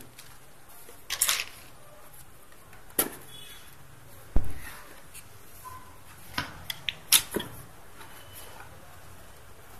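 A cardboard box being handled and opened by hand. A rustle, a sharp tap, and a dull thump about four and a half seconds in, which is the loudest sound, then a quick cluster of small clicks and scrapes as the flaps are worked open.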